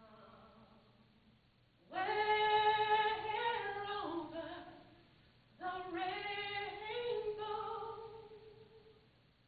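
A woman singing solo with no accompaniment, in long held notes: a soft phrase, then about two seconds in two loud phrases with a short breath between them.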